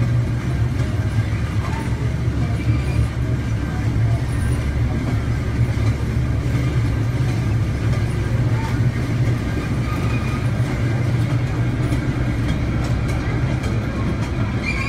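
Mine-train ride cars rolling along their track with a steady low rumble.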